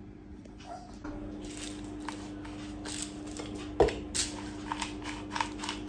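Handling noise from the recording phone: a run of light irregular clicks and taps, with one sharper knock a little under four seconds in. Under it is a steady low hum that starts about a second in.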